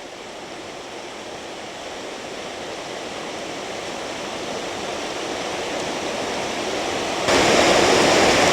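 A brook with waterfalls rushing through a rocky gorge: a steady hiss of running water that slowly grows louder, then jumps abruptly louder about seven seconds in.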